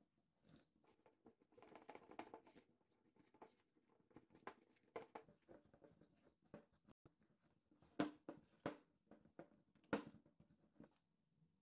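Wooden spoon stirring and scraping sticky dough in a glass bowl, with irregular soft taps and knocks of the spoon against the glass; two sharper knocks come about 8 and 10 seconds in.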